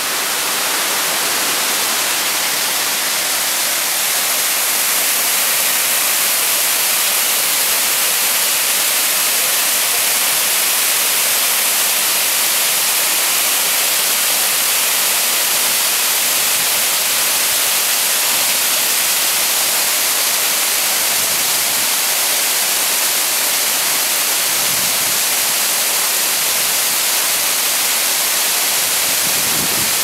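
Dudhsagar Falls, a large waterfall, rushing down over rock: a steady, loud hiss of falling water.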